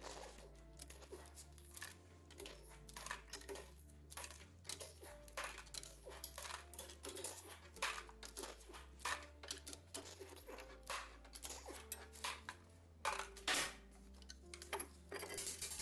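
Background music with a steady, shifting bass line, over irregular sharp clicks and metallic clanks of hand tools and engine parts being handled.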